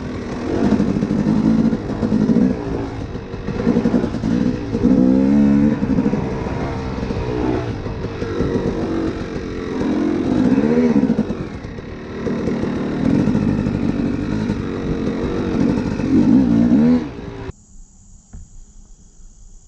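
A 250 cc two-stroke dirt bike engine being ridden, its pitch rising and falling over and over with throttle and gear changes. It cuts off suddenly about three seconds before the end, leaving a much quieter stretch with a faint steady high tone.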